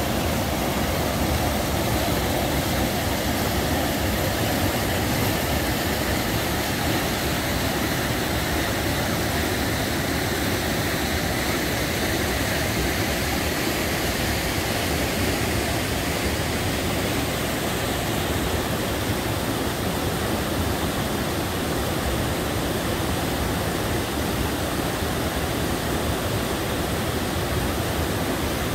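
River rapids rushing steadily: a constant roar of white water.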